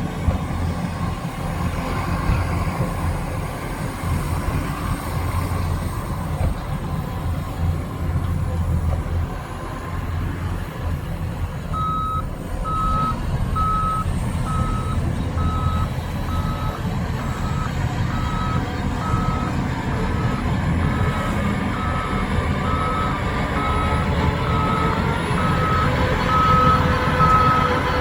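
Heavy diesel earth-moving machinery runs with a steady low rumble. About halfway through, a reversing alarm starts up, beeping evenly and steadily: a machine on the site is backing up.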